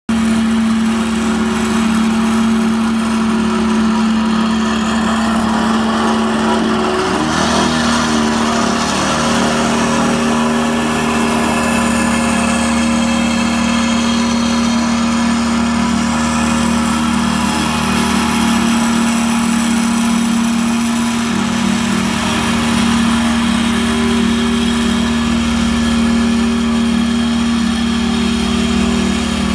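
Small engine of a walk-behind double-drum roller running steadily as it compacts bare soil, holding one strong steady tone that drops slightly in pitch about seven seconds in.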